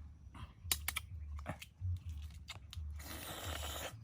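A person chewing and biting into food: scattered sharp crunches, then a longer stretch of crunching near the end.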